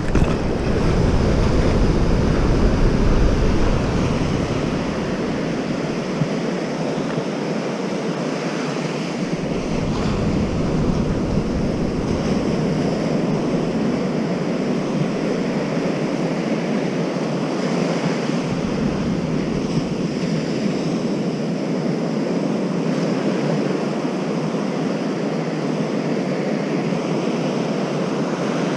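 Ocean surf washing steadily on a beach, with wind rumbling on the microphone for the first few seconds and briefly twice more.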